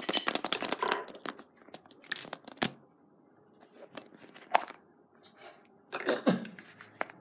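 Hollow plastic toy eggs clicking and clattering as they are handled, and one egg being pulled open. The sharp clicks come thick and fast in the first second, then in scattered groups.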